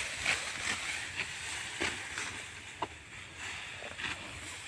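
Dry, ripe rice stalks rustling and swishing irregularly in a paddy field during hand harvesting, with one sharp click about three seconds in.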